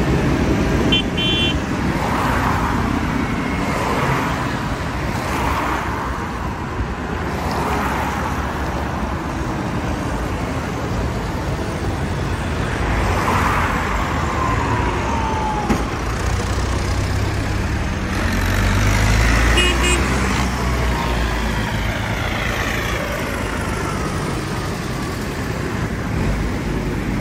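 A procession of farm tractors, New Holland among them, driving past one after another on a wet road: diesel engines running and tyres hissing on the wet surface, swelling and fading as each one passes, with a car going by among them. The engine sound is loudest about two-thirds of the way through, and there are brief high toots about a second in and again around twenty seconds in.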